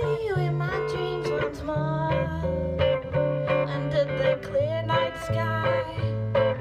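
A woman singing a song, accompanying herself on electric guitar with a strummed part and steady low notes; her voice slides and wavers between notes.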